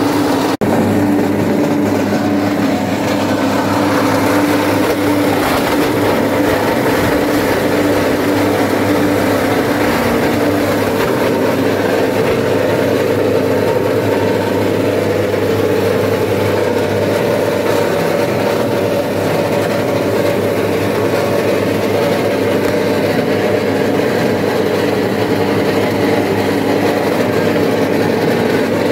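Homemade plastic shredder running steadily with a constant mechanical drone while plastic bottles and bags are fed into it; a brief dropout about half a second in.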